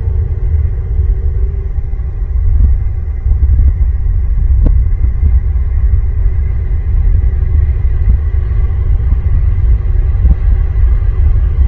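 Loud, steady low rumble with a single sharp click about four and a half seconds in and a few fainter knocks.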